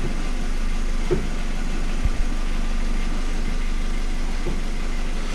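Mitsubishi Lancer X 1.5-litre engine idling steadily in neutral, its manual gearbox freshly refilled with oil. Only a faint knock from the gearbox is left, heard now and then as a soft thump.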